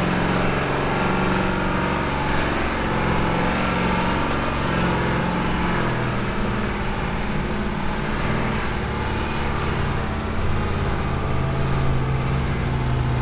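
Jeep's engine running steadily as it crawls up a steep slickrock climb, with a low, even drone.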